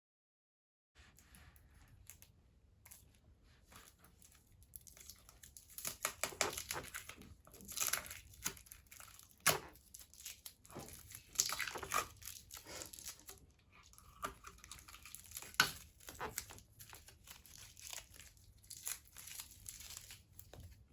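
Packaging being torn and crumpled by hand: irregular crackling rustles, loudest in the middle, with a few sharp clicks.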